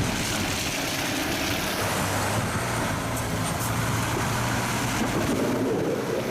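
Road traffic: a steady wash of traffic noise, with a vehicle's low engine hum standing out from about two seconds in until about five seconds.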